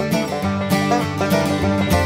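Bluegrass-style instrumental music with plucked strings and a steady beat.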